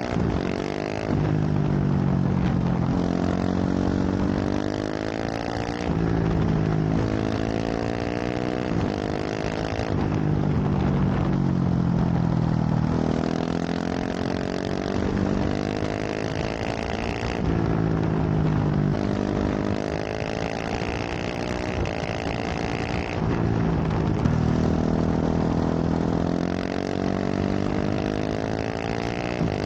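KTM 690 SMC R single-cylinder engine through a full LeoVince exhaust, ridden hard: the pitch climbs under acceleration and drops at each gear change or roll-off, again and again.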